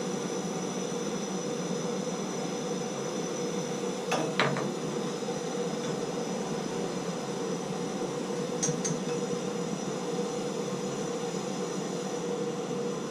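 Gas plumbing torch burning with a steady roar while heating a soldered valve joint, with a few light metallic clinks: one about four seconds in and a quick pair near the middle.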